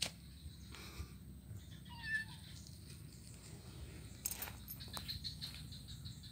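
A kitten gives one short meow about two seconds in, with a few sharp clicks scattered around it.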